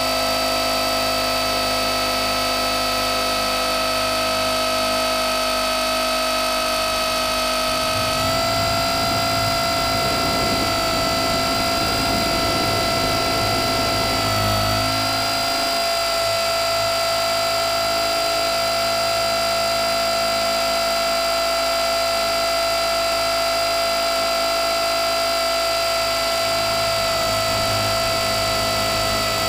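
Blade 450 X electric RC helicopter in flight, heard from a camera mounted on it: a steady high whine from the electric motor and gear drive over rotor noise. The whine shifts slightly in pitch about 8 and 15 seconds in, with more low rumble between those two points.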